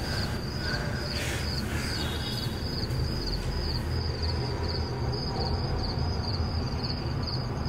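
Crickets chirping: an even, high pulsing trill of about three pulses a second, over a low steady hum.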